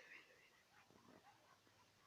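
A brief, faint cat call right at the start, then near silence with a few faint soft sounds.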